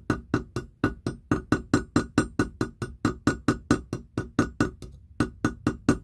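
Small jeweler's hammer tapping rapidly, metal on metal, on the end of a wire pin, peening it into a flat rivet head on a bracelet's slide clasp. It strikes at about six taps a second with a short ring after each, with a couple of brief pauses.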